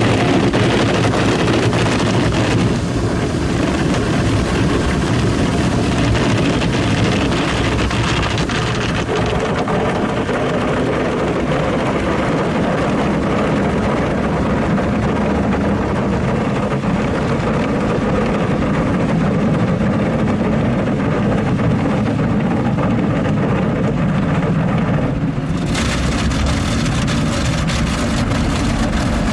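Automatic car wash machine running over the car, a steady rushing hiss of water spray and machine noise heard from inside the car. The hiss dulls a few seconds in and again about a third of the way through, then brightens abruptly near the end.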